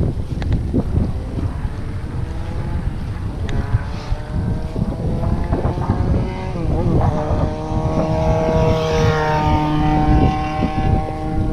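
Wind buffeting the microphone of a bicycle-mounted camera while riding, with a few short knocks early on. A steady pitched hum of unclear source joins about four seconds in and fades near the end.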